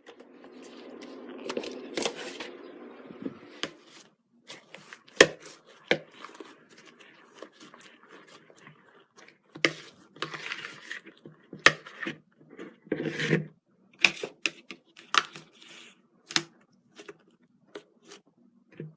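Slime-making handling sounds: a steady scraping rustle for the first few seconds, then scattered sharp clicks, taps and short scrapes at irregular intervals.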